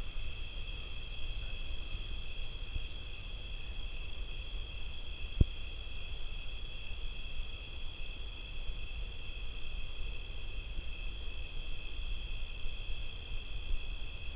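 A steady, high-pitched chorus of night insects, crickets by its sound, with a low rumble beneath it. One sharp click comes about five seconds in.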